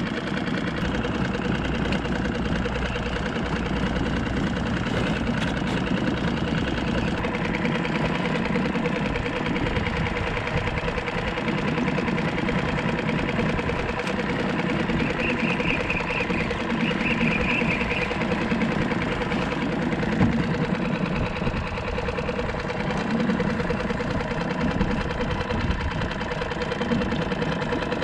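Small boat's outboard motor running steadily while trolling, with a few short high-pitched rattles a little past halfway.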